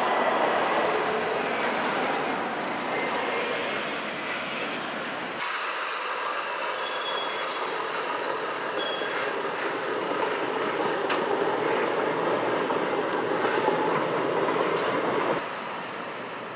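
A Volvo FH truck with a multi-axle flatbed trailer driving past in city traffic: diesel engine running and tyre noise, with other cars around it. The sound changes suddenly about five seconds in and again near the end.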